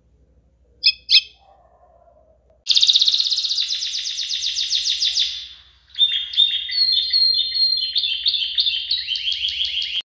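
A double-collared seedeater (coleirinha) gives two sharp high notes, then a fast, dense trill lasting about three seconds. About six seconds in, a domestic canary (canário-do-reino) takes over with a varied song of quick repeated phrases.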